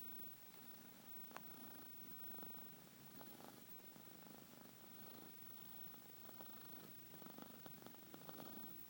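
A sleeping domestic cat snoring faintly, soft breaths coming one after another, with a few light clicks in the breathing.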